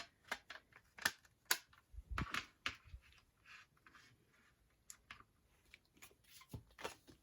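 Hands pulling the inserts out of a plastic CD jewel case: a string of small clicks and paper rustles, busiest in the first three seconds, then softer and sparser.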